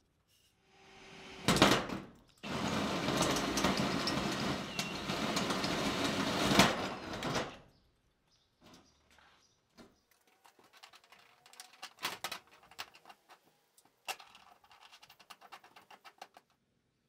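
Power drill boring a hole through corrugated sheet-metal wall siding: a short spin-up, then about five seconds of loud, steady cutting noise that stops abruptly. Scattered light clicks and taps follow.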